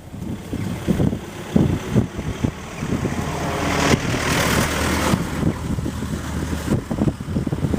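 Blizzard wind buffeting the microphone in uneven gusts. Through the middle a vehicle passes: a low engine hum with a hiss that swells and then fades.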